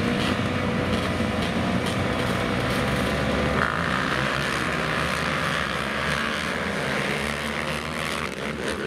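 A vehicle engine running loudly and steadily, its tone brightening about three and a half seconds in.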